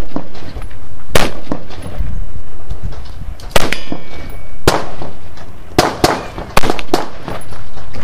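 A string of about seven gunshots at uneven spacing, each loud crack followed by a rolling echo, as a competitor fires on steel targets; about three and a half seconds in, a struck steel plate rings briefly.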